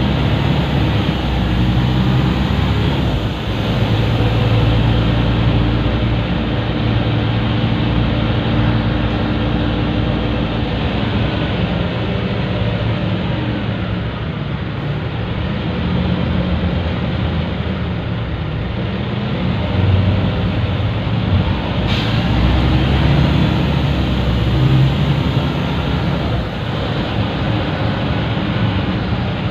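Scania L94UB city bus heard from inside the cabin while driving, its rear-mounted diesel engine pulling under load with a constant hiss as it accelerates. The uploader guesses the hiss is a vacuum leak, a turbo leak or a fault in the air brakes. One sharp click about two-thirds of the way through.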